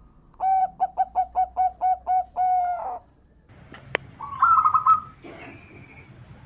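Zebra dove (perkutut) cooing: a quick run of about eight short, evenly spaced coos closing on a longer drawn note. A sharp click follows, then a short warbling call and a brief higher note.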